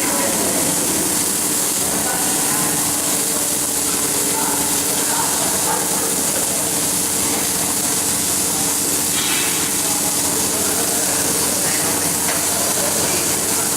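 Electric arc welding: the arc hisses steadily and without a break, over a low steady hum.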